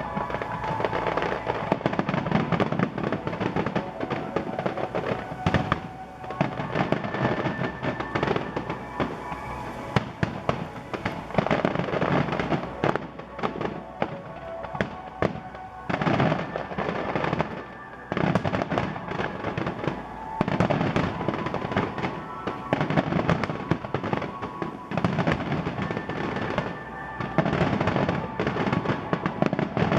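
Fireworks display finale: aerial shells bursting in quick succession, many bangs overlapping one another with no real pause.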